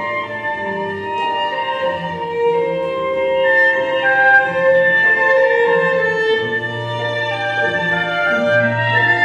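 String music: a violin line over held low notes, with long sustained tones throughout.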